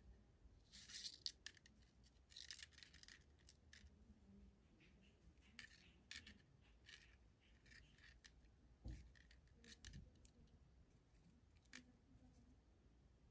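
Faint rustling and scraping of nylon monofilament fishing line being pulled through the fingers while a knot is tied, with a few small clicks; the longest swishes come about a second in and again around two and a half seconds.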